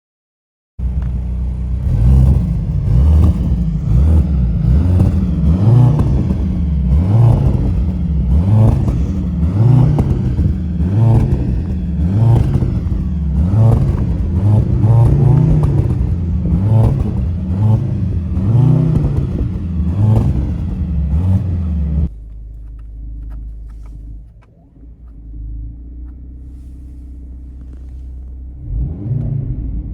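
Mercedes-AMG C63 S E Performance's turbocharged four-cylinder engine revving in repeated blips, the pitch rising and falling about once a second, starting suddenly about a second in. About two-thirds of the way through it drops abruptly to a much quieter steady drone, with revs rising again near the end.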